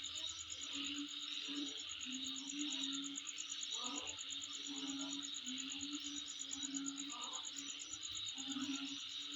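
Insects calling steadily: a fast, even high-pitched pulsing trill over a continuous buzz. A short low call repeats about once a second under it.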